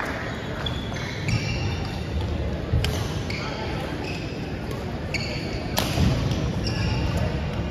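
Badminton racket strikes on a shuttlecock in a large gym hall, with two sharp hits about three seconds and six seconds in, the second the loudest, and short squeaks of court shoes on the wooden floor in between.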